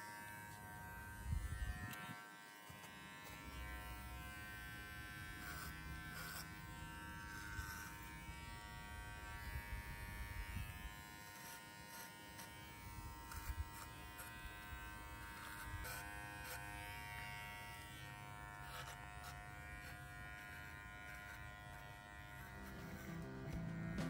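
Cordless electric pet hair clippers running with a steady buzz while trimming a dog's coat, with a few short knocks as the clipper is handled.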